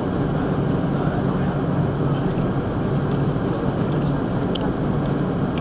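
Steady cabin noise of an Airbus A330-300 taxiing, its Rolls-Royce Trent 700 engines running at taxi power, heard from inside the cabin as an even rush with a low steady hum.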